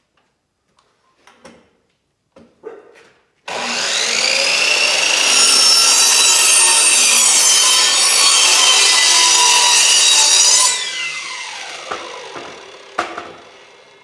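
Miter saw switched on about three and a half seconds in, its motor whining up to speed and cutting through a 1x12 wooden board for about seven seconds, then released and spinning down with a falling whine. A few light knocks come before it starts, and one sharp click as it winds down.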